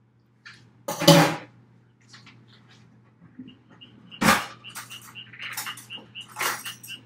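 Kitchen handling sounds: a loud knock about a second in, then a drawer pulled open and cutlery clicking inside it, with sharp clicks about four seconds in and again near the end. A faint high chirp repeats a few times a second under them.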